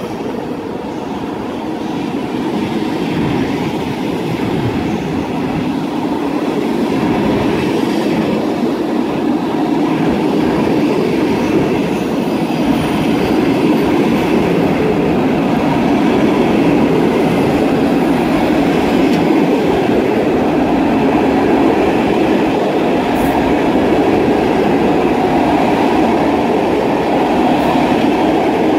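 Passenger coaches of a departing train rolling past along the platform: a steady rumble of wheels on the rails that grows gradually louder.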